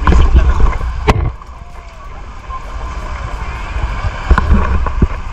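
Wind buffeting the microphone in gusts, strongest in the first second and again about four seconds in, over water sloshing around a clear plastic kayak, with a few sharp knocks.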